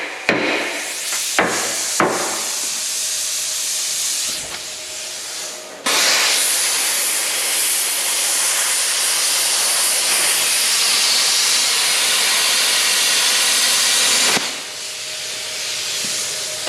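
Metal-cutting torch hissing while cutting through damaged steel on a dozer blade. A few sharp clicks come near the start, then the hiss jumps abruptly louder about six seconds in and holds steady until it drops back near the end.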